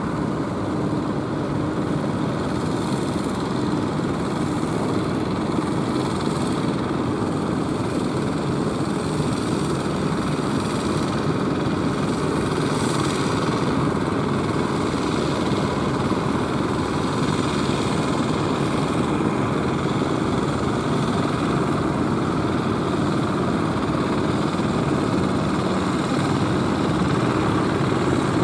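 Fishing boat engines running steadily as the boats motor through the surf, with the wash of waves over them, growing slightly louder near the end as a boat comes closer.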